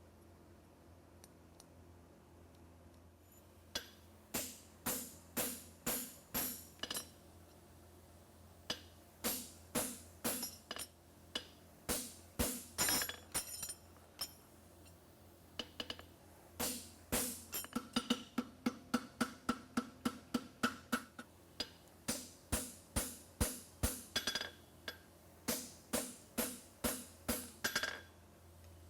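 Hammer blows ringing on a steel horseshoe over an anvil, starting a few seconds in and coming in runs of about two to three strikes a second with brief pauses between runs.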